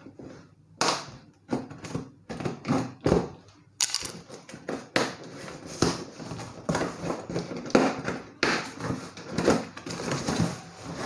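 Cardboard box being opened by hand: an irregular run of rips, scrapes and knocks of cardboard and packing tape, with some longer tearing stretches.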